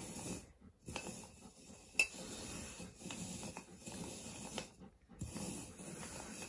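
Alaskan malamute breathing heavily through its open mouth, in long breaths with short pauses, with a light tap of a plastic cup on the floor about two seconds in.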